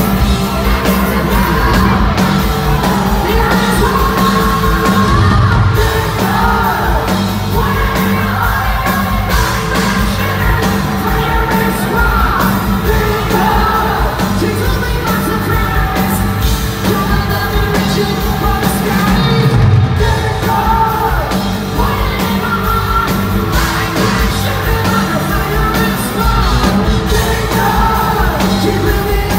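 Live hard rock band playing loud: a male singer belting and yelling over electric guitar and drums, heard from the crowd in a concert hall.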